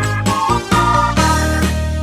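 Background music: an upbeat instrumental track with a steady bass and plucked notes.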